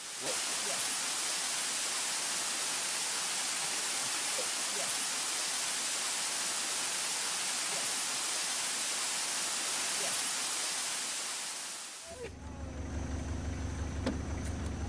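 Steady rushing of a shallow stream running over rocks. About twelve seconds in it cuts off and a low, steady mechanical hum, like an idling motor, takes over.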